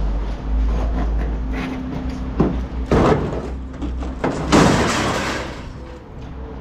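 White plastic scrap pieces being thrown into a steel roll-off dumpster: a couple of knocks about two and a half and three seconds in, then a louder clattering crash against the bin's steel walls about four and a half seconds in, over a low rumble.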